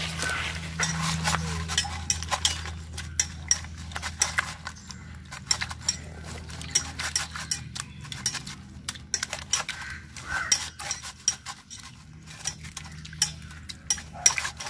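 Hands rubbing and washing pieces of tuna in buttermilk in a stainless steel bowl: wet sloshing with many quick, irregular clicks and knocks of fish and fingers against the steel.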